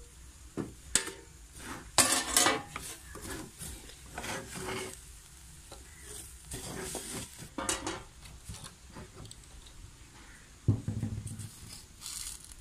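A spoon stirring and scraping chopped manioc leaves in a clay pot, with irregular clatter of the pot and lid. There is a dull thump near the end.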